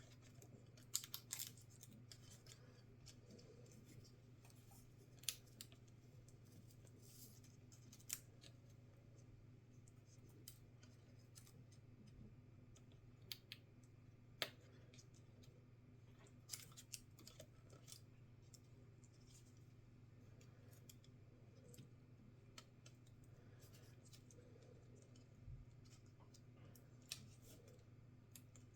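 Small hand tools and laptop parts being handled during repair: scattered light clicks and taps, about a dozen spread irregularly, over a faint steady low hum.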